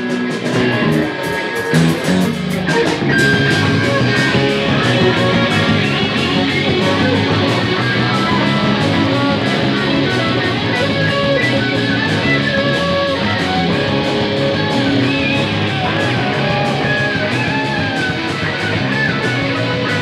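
Live rock band playing an instrumental passage without vocals. An electric guitar plays a lead line with bending notes over bass guitar and steady drums and cymbals.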